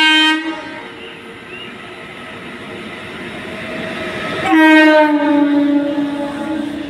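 Freight locomotive's horn sounding twice: a short blast at the start, then a long blast from about halfway that dips slightly in pitch as the locomotive passes close below. Under it, the rumble of the long-haul freight train grows as it approaches.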